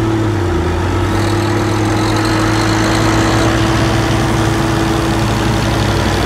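Farm tractor's diesel engine running steadily with a constant low drone and a steady hum above it.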